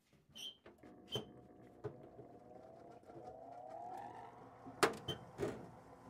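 Sheet-metal furnace door panel being handled: a series of metallic clanks and knocks, some ringing briefly, with the loudest near the end. A steady hum runs underneath, with a faint rising whine about three seconds in that levels off.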